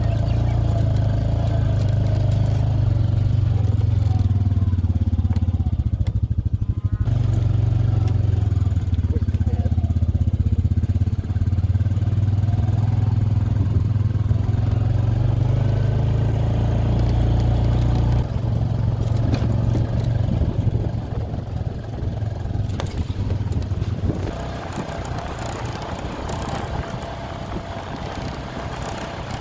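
Vehicle engine running steadily with a low hum. About 18 seconds in the sound turns rougher, and it is a little quieter from about 24 seconds.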